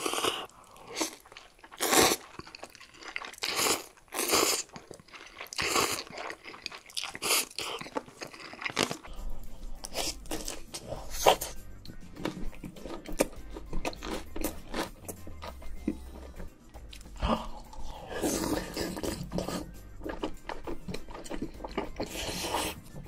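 Close-miked eating: loud crunchy bites and chewing. About nine seconds in, it changes to softer chewing and mouth sounds over background music with a low, stepping bass line.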